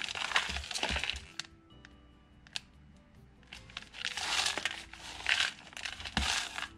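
Clear plastic shrink-wrap on a cup-noodle container crinkling and crackling as hands grip and turn it, in two bouts: a short one at the start and a longer one from about halfway to near the end. Soft background music plays underneath.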